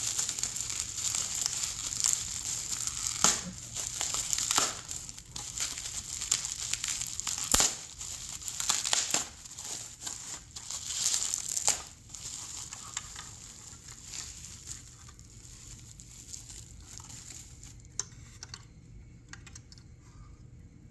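Plastic bubble wrap crinkling and rustling as it is unwrapped from a model locomotive by hand, with a few sharper cracks. About halfway through the rustling dies down to a few light ticks.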